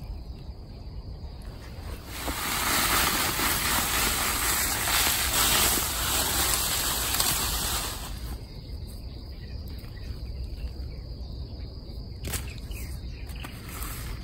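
Loud rustling noise for about six seconds, which fits the handling of freshly pulled arrowroot rhizomes with their roots and foliage. Then a few sharp knocks of a small hand hoe chopping into soil near the end.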